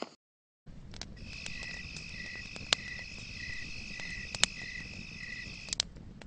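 Night-time cricket ambience: a steady high insect trill with a slower chirp repeating about twice a second over a low rumble, starting just under a second in. A few sharp clicks stand out above it.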